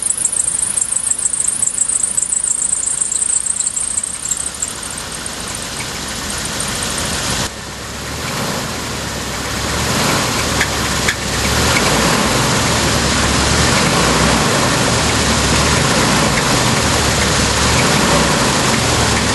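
Chevrolet 350 TBI V8 running, with the engine knock it is sold with. A fast, high-pitched chirping squeal sits over it for the first several seconds; about eight seconds in the engine sound grows fuller and louder, steps up again around eleven to twelve seconds, and then holds steady.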